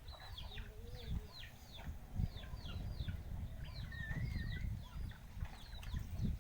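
Small birds chirping: many short, high, falling peeps in quick succession and overlapping, with a brief warbling call about four seconds in and a low rumble underneath.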